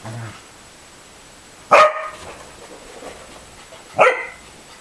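A corgi barks twice during rough play, two short sharp barks about two seconds apart, after a brief low growl at the very start. A steady hiss from the camera's built-in microphone runs underneath.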